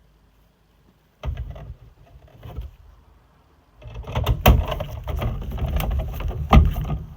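Handling noise from parts and tools being worked during an ignition module replacement: irregular knocks, clicks and rustling, starting about a second in, pausing briefly, then busier from about four seconds in with a few sharper clicks.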